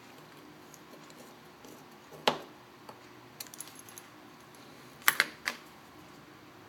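Sharp little clicks and light metallic taps of small tools and parts being handled on an opened iPhone 4S: one click about two seconds in, a few faint ticks around three and a half seconds, and a louder double click about five seconds in.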